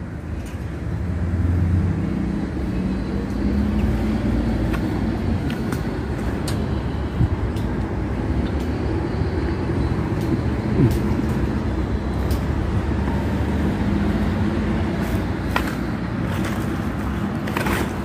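A steady low engine rumble, with a few light clicks and knocks now and then.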